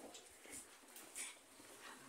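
Near silence: faint room tone with a few soft, brief rustling sounds.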